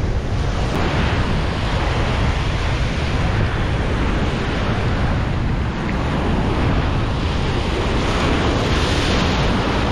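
Ocean surf breaking and washing up a sandy beach, with wind noise on the microphone.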